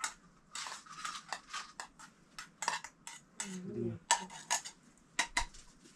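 Dishes and utensils clinking and clattering in a quick irregular run of sharp clinks, with a brief voice sound about halfway through.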